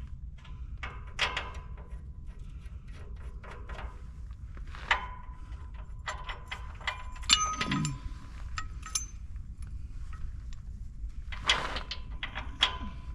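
Scattered metal clinks and taps of nuts and bolts being handled and set back in place, a few of them ringing briefly, over a steady low hum.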